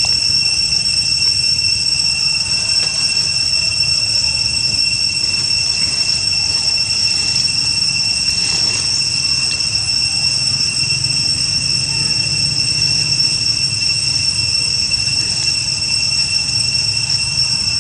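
Insects droning steadily at one high, even pitch, over a low background rumble.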